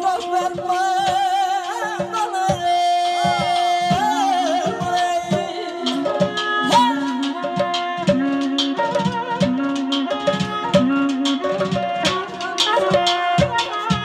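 Live Azerbaijani wedding folk music: a frame drum beating a steady rhythm under a held drone note and an ornamented, wavering melody.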